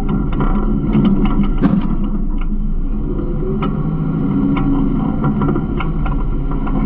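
Garbage truck running, a steady loud engine drone with frequent short clanks and rattles throughout.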